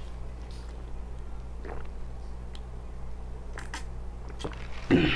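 Someone drinking from a foam cup close to the microphone: a few faint swallows and mouth clicks over a low steady hum. Near the end comes one short, loud vocal sound that falls in pitch.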